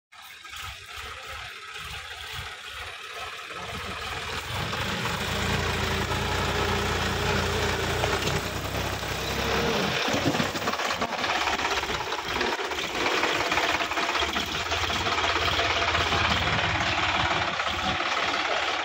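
Sonalika DI-50 RX tractor's diesel engine working hard, growing louder over the first few seconds as the tractor comes closer, then running steadily under heavy load.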